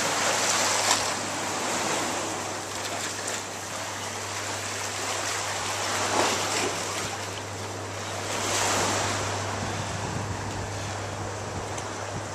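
Sea waves washing against the rocks along a seawall, swelling and easing several times.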